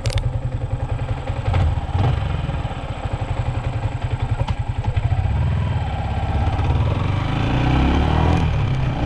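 Yamaha Y16ZR's 155 cc single-cylinder four-stroke engine running under way as the motorcycle is ridden, its note rising as it accelerates near the end.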